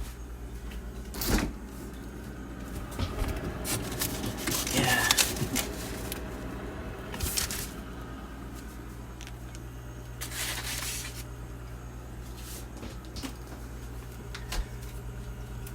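Scattered knocks and short rustling noises of things being handled, over a steady low hum.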